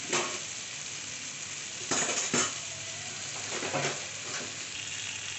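Butter sizzling steadily as it melts in a granite-coated wok over a low gas flame, with a few brief clinks, loudest about two seconds in.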